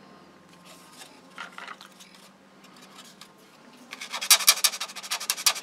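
Faint handling of a plastic model kit, then a fast run of rapid back-and-forth scraping strokes on the plastic fuselage starting about four seconds in, at roughly a dozen strokes a second.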